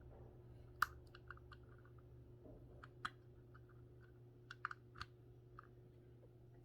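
Small plastic clicks and taps from fitting an optical audio cable plug into a digital-to-analog audio converter. The sharpest clicks come about a second in, around three seconds, and several close together near five seconds, over a faint steady hum.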